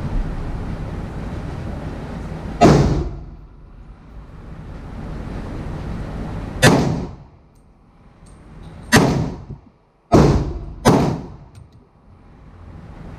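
Five pistol shots from a Glock 31 in .357 SIG fired from a carbine conversion kit, each with a short echo. The first comes about two and a half seconds in and the next follows about four seconds later. The last three come faster, the final two less than a second apart.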